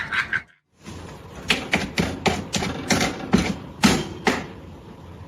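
A quick, irregular run of about a dozen sharp knocks lasting about three seconds.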